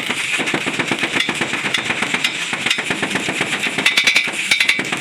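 Rapid, uneven series of sharp metallic knocks, like hammering on metal, a little louder near the end.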